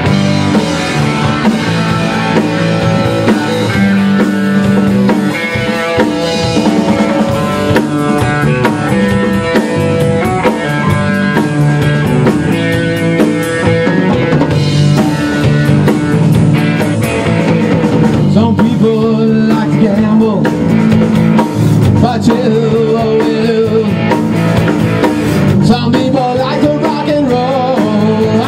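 Rock band playing live: a drum kit keeping a steady beat under electric guitar.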